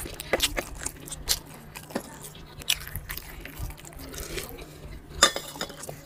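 Chewing and hand-mixing of rice on a stainless steel plate, a run of small wet clicks and squishes. A sharp metallic clank about five seconds in as a small steel bowl is set down.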